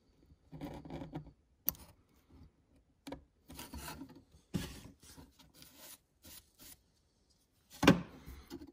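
Hobby knife blade scratching lines into hardened hydrocal plaster along a steel ruler: a series of short scraping strokes, with one louder stroke near the end.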